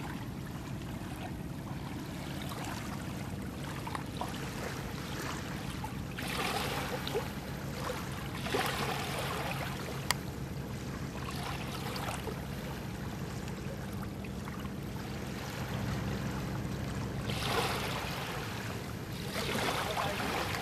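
A boat engine running steadily, under water splashing and lapping against the boat. There are louder splashes about a third of the way in and again near the end.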